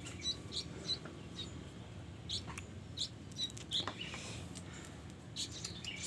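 Sooty-headed bulbul chicks chirping in short, high calls, scattered and at times a few a second, the begging calls of nestlings being hand-fed.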